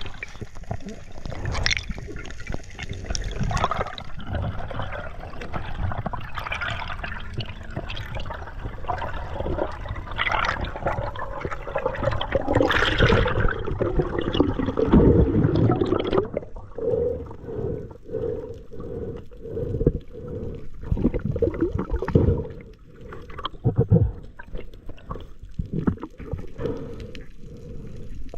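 Seawater gurgling and sloshing around a camera in the sea, with many small knocks. It is loudest about halfway through, then turns into a run of short, rhythmic gurgles.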